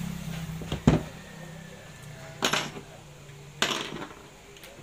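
Tools and metal parts being set down and knocked on a workbench: three sharp clattering knocks about one, two and a half, and nearly four seconds in, over a low steady hum.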